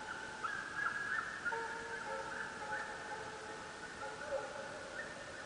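A pack of deer hounds baying: several dogs' long, drawn-out howls at different pitches, overlapping and wavering.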